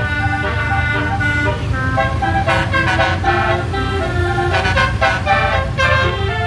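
Basuri bus horn, a set of tuned air horns, playing a tune of short, changing notes, with a steady low rumble underneath.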